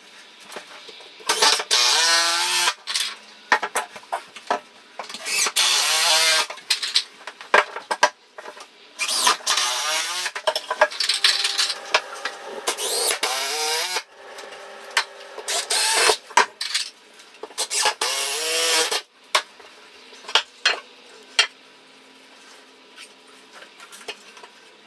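Cordless drill working into a timber bed rail fixed to the wall, running in about five bursts that each speed up with a rising whine. It is quieter for the last few seconds.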